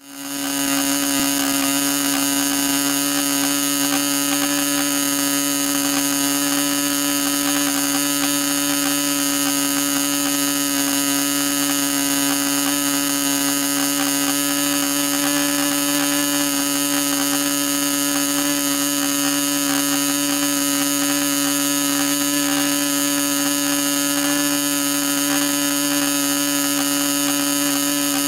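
Lincoln .61 long-stroke model glow engine running steadily at a little over 8,000 rpm, turning an APC 13x6 propeller on its first break-in run after cleanup. The steady whine fades in at the start and holds at one even pitch.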